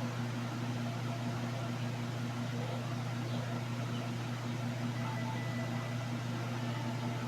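A steady low hum, like an appliance or fan motor running, with a faint pulsing tone above it.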